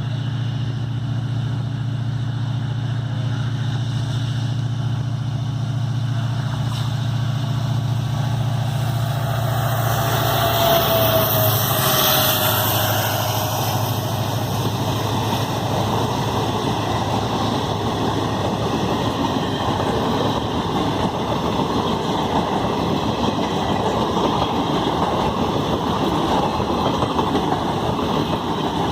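WDP4 diesel locomotive's two-stroke EMD engine giving a deep, steady hum as it approaches, passing about eleven seconds in. After that comes the continuous rumble and clatter of the express's coaches rolling past.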